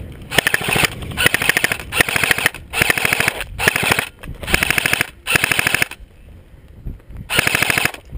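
Airsoft gun firing full-auto in a string of short bursts of rapid clicks: seven bursts back to back, a pause of over a second, then one more burst near the end.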